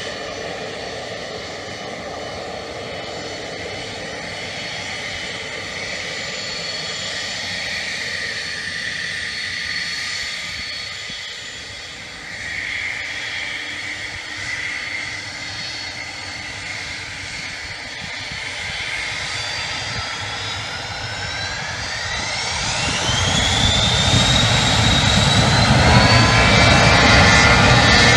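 Turbofan engines of a four-engined BAe 146/Avro RJ85 regional jet whining steadily at low power, with several high steady tones. About twenty seconds in, the whine climbs steeply in pitch and the sound grows louder as the engines spool up for the takeoff roll.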